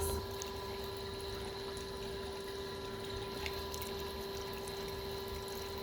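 A steady hum holding one pitch, over faint water sounds from a backyard swimming pool.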